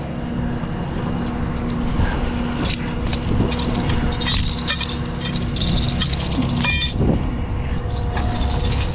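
Truck engine idling steadily, with a steel tow chain clinking a few times as it is carried and dragged over the pavement.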